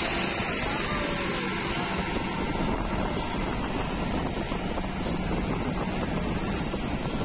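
Steady rush of road and wind noise from a moving vehicle, with a low engine hum underneath.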